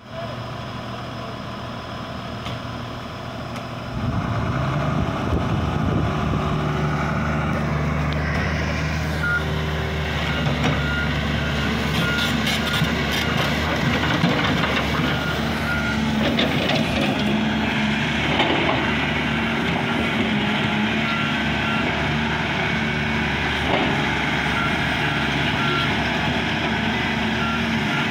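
Volvo EC480 crawler excavator's diesel engine running, stepping up in level about four seconds in as the machine is worked. From about nine seconds on, a steady train of short travel-alarm beeps sounds over it, with a few sharp clanks near the middle.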